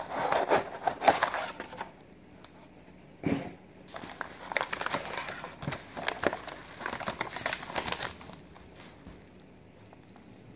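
Packing material being handled and crinkled as a mailed box is unpacked: irregular rustling and crackling in clusters, stopping about eight seconds in.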